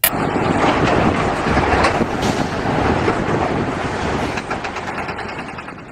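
Heavy eight-wheel dump truck driving over rough ground: a loud, steady engine-and-chassis rumble with rattling, starting suddenly and fading away near the end.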